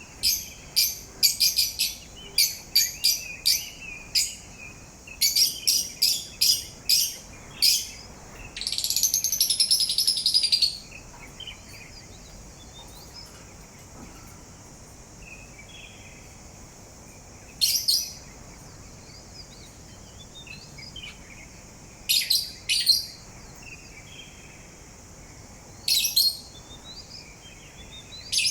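Pet parrot singing: a quick run of short, high chirps and whistles, then a loud raspy call lasting about two seconds. After that come a few single chirps spaced several seconds apart, with soft faint twittering between them.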